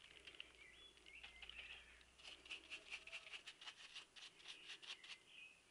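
Faint scratchy scrubbing of a paintbrush's bristles on a small oily engine part in petrol, a quick run of strokes about three a second from about two seconds in, with a few brief high squeaks.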